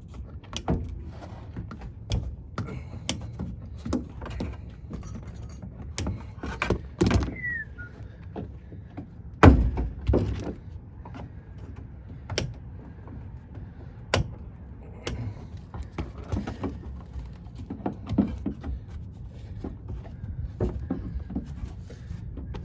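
Irregular knocks, clanks and thuds of hands and tools working on sheet-metal ductwork, the loudest bang about nine and a half seconds in.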